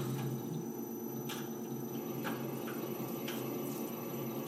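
Small CNC lathe threading a 5/8-11 thread at a slow 100 RPM spindle speed, its 1 hp three-phase spindle motor on a vector drive giving a steady hum with a faint high whine, and a few light ticks about once a second.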